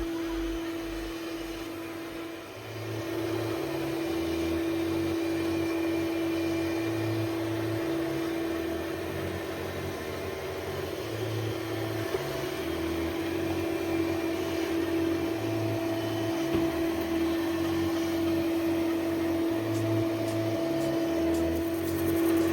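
A steady motor hum, plausibly from the Ecovacs Deebot X8 Omni robot vacuum or its base station, with a stepping bass line of background music underneath.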